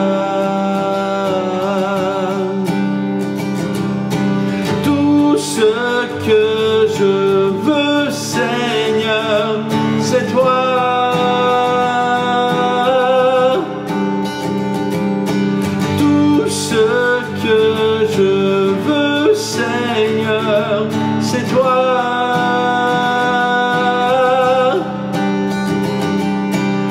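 A man singing a worship song while strumming an acoustic guitar steadily, solo voice and guitar.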